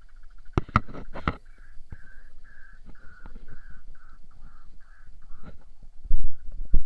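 White-breasted waterhen (ruak-ruak) calling: a run of about ten harsh, evenly spaced notes, roughly three a second. A few sharp knocks come just before the calls, and loud low thumps near the end.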